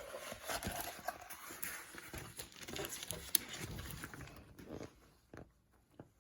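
Paper and packaging rustling and crinkling as the sheets of a diamond painting kit are handled and unfolded, with scattered light clicks and taps. The rustling fades out about five seconds in.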